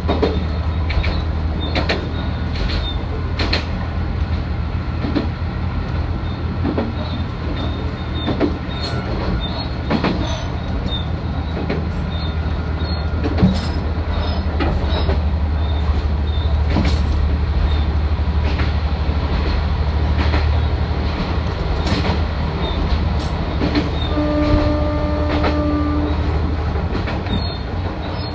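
Isumi 350 diesel railcar running along the line: a steady low diesel engine hum with sharp clicks from the wheels over rail joints. Near the end, a single steady tone sounds for about two seconds.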